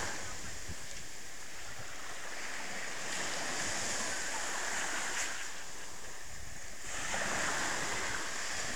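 Small waves breaking and washing up onto a sandy beach: a steady rushing hiss that swells again about seven seconds in as the next wave runs up the shore.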